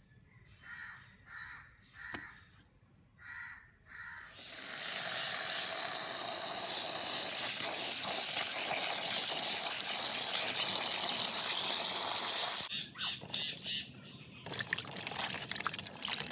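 A bird calls several times. About four seconds in, tap water starts gushing steadily into a bucket of sweet limes. It stops near the end, and hands then splash and rub the fruit in the water.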